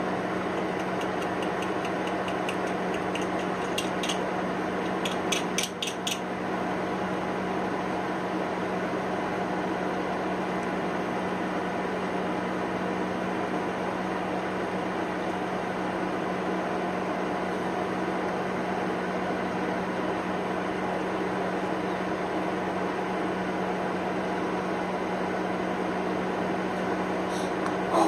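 Microwave oven running with a steady hum. A run of sharp clicks comes in the first six seconds, and another near the end.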